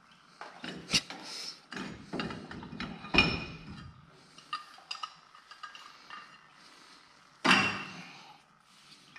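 Metal tools and brake parts clanking and knocking during work on a race car's locked-up brake caliper, with sharp strikes about one and three seconds in and another loud strike with a brief ring near the end.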